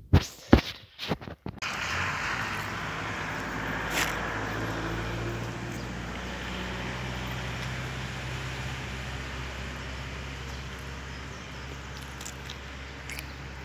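A few sharp clicks and bumps, then from about two seconds in a steady outdoor rumble and hiss with a faint low hum.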